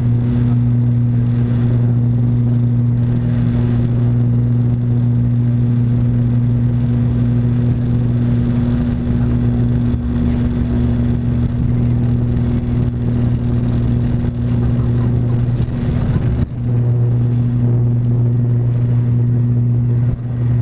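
Turboprop engine of an ATR 42-500 at takeoff power, heard from the cabin beside the propeller: a loud, steady propeller drone with a strong low hum. There is a brief dip in the noise about three-quarters of the way through.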